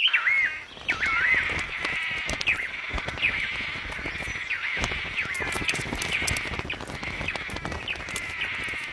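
Manakins calling during a male courtship display: several looping, whistled calls in the first second or so over a dense, steady high-pitched chorus, with scattered sharp clicks throughout.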